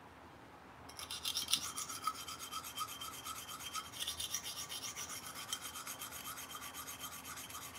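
Steel knife blade scraped in quick back-and-forth strokes across a very coarse hand-held sharpening stone, a steady rasping of about five strokes a second. It starts about a second in and stops abruptly near the end. Steel is being ground away to reshape the blade rather than to sharpen the edge.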